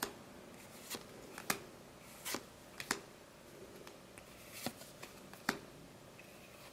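Freshly opened trading cards being flipped through by hand one at a time. Each card moved to the front of the stack gives a faint, short flick, about seven times at irregular intervals.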